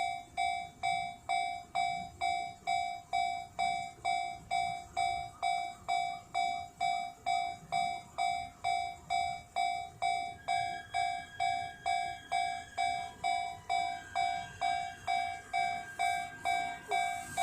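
Japanese railway level crossing warning bell ringing its steady repeated clang, about two strokes a second, signalling that a train is approaching and the crossing is closing. A faint steady whine joins it about ten seconds in.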